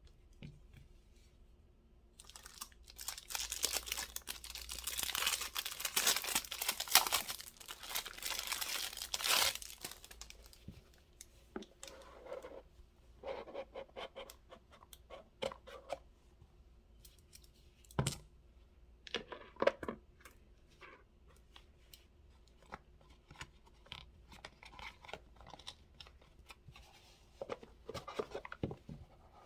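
Packaging being torn and crinkled open for about eight seconds, then scattered light clicks and rustles as the contents are handled.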